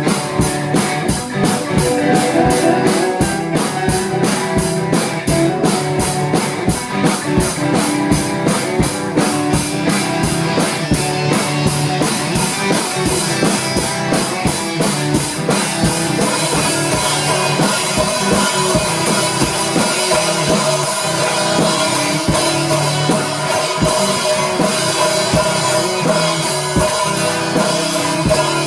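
A band playing a rock song live, with drum kit and guitar.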